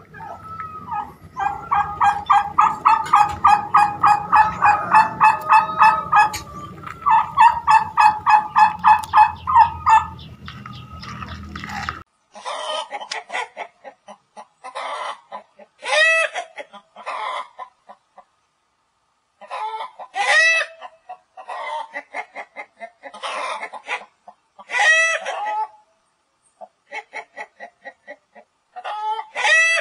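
A domestic turkey calling in two long runs of quick, evenly spaced notes, about four a second. About twelve seconds in the sound changes suddenly to a flock of chickens clucking and calling, in short bursts with pauses between.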